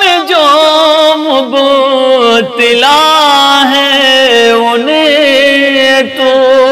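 A man singing a naat, an Urdu devotional hymn, in long drawn-out notes that waver and slide in pitch, with no instrument audible.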